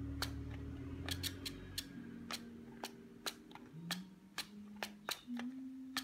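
Steering servo and wing linkage of a remote-control flapping-wing bird being worked left and right: a string of irregular sharp clicks over a faint steady whine that shifts in pitch as the servo moves.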